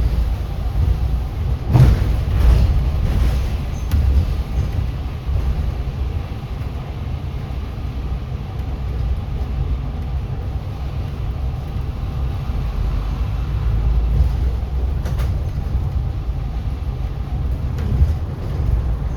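Inside a moving city bus: a steady low rumble of engine and road, with a few short knocks and rattles from the bus body at about two seconds and again near the end.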